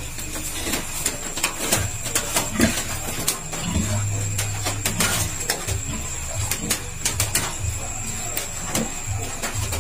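Light clicks and taps of a small medicine vial and a plastic syringe being handled while a dose is drawn up, over a steady high-pitched whine and a low hum that comes and goes.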